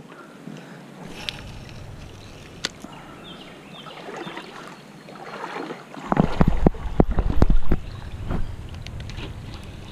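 Plastic kayak on a creek: light water and hull noise with a few sharp clicks, then, about six seconds in, a cluster of heavy thumps and knocks lasting about two seconds.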